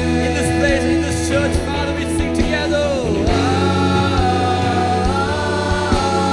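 Live contemporary worship song: a singer on a handheld microphone sings long held notes of the "Amen, amen" refrain over a steady band backing with sustained bass.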